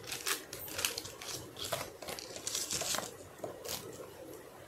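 Plastic packet of sketch pens crinkling as it is handled, in a string of short, irregular rustles.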